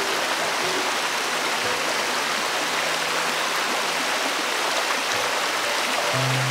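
Shallow stream running steadily over rocks, a continuous rush of water. Background music comes back in near the end.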